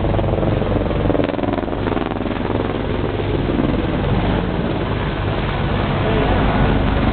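Steady engine drone with a low, even throb, loud throughout.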